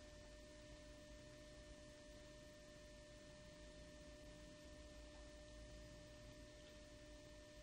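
Near silence: a faint, steady hum of a few held pure tones over a low rumble.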